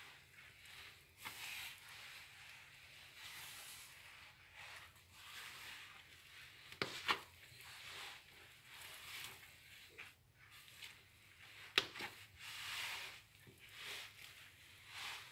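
Hands kneading a large batch of crumbly bread dough in a wide bowl: faint, repeated rubbing and squishing strokes, with a few sharp knocks, two about seven seconds in and one near twelve seconds.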